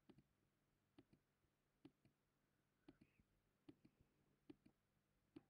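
Faint computer clicks as LED squares are clicked on one at a time: about seven in all, roughly one a second, most heard as a quick double tick of button press and release.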